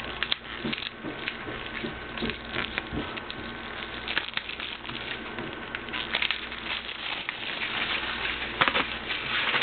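Irregular crackling and clicking of a plastic DVD case and its wrapping being handled and opened.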